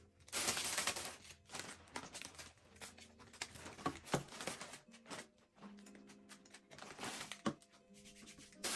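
Clear plastic packaging crinkling and tearing as it is pulled open by hand, in irregular rustles with a few sharp crackles.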